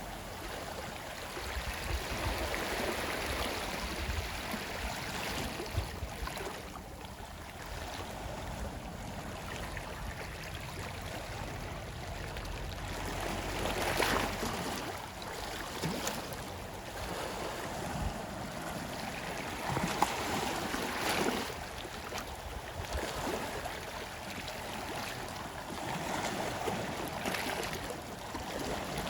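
Sea waves washing onto a shore, swelling and falling away every few seconds, with the biggest surges about fourteen and twenty seconds in.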